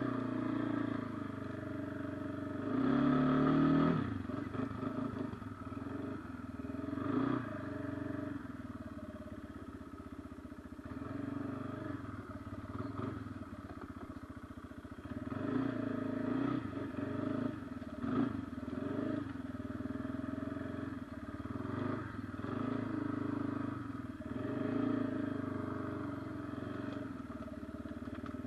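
Kawasaki Brute Force 300 ATV's single-cylinder four-stroke engine running while riding, its pitch rising and falling with the throttle, revving up hardest about three seconds in and swelling again several times.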